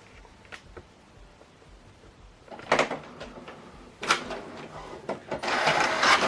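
HP DeskJet 3700-series inkjet printer starting a print job: a few faint clicks, then clattering knocks of its mechanism about halfway through and a louder whirring rattle near the end as it works.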